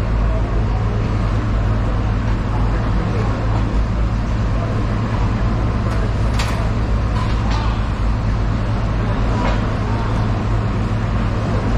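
Steady low engine-like rumble with a constant hum, and a few short sharp scrapes or clicks about halfway through.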